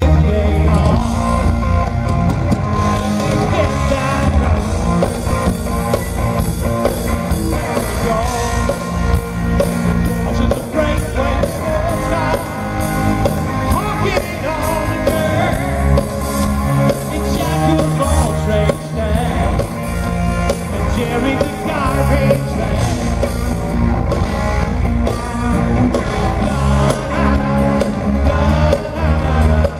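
Live rock band playing through a PA: a lead singer over electric guitars, keyboard and drums with a steady beat, heard from within the audience.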